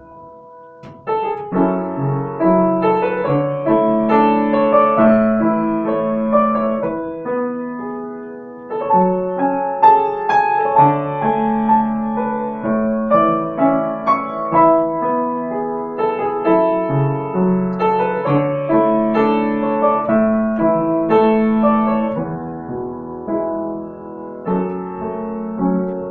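Solo piano music, a melody over sustained chords, coming in about a second in after a brief pause.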